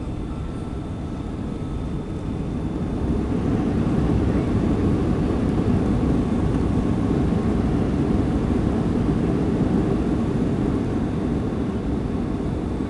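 Boeing 757 cabin noise during the landing rollout: a steady deep roar that swells about three seconds in and eases off slowly toward the end.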